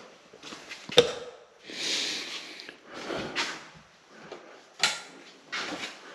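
Kitchen cabinetry being handled in a small room: a sharp click about a second in, a short hiss, then a couple of softer knocks, the one near five seconds in the plainest.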